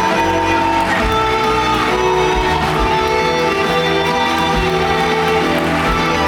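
Curtain-call music from a stage musical's band: instruments playing sustained melody notes over a bass line.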